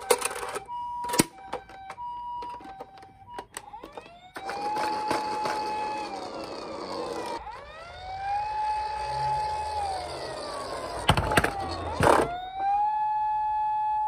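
Toy ambulance's electronic siren. First a two-tone hi-lo siren alternates, mixed with sharp plastic clicks. About four seconds in it switches to a wail that rises, holds and falls three times, with a few knocks shortly before the last rise.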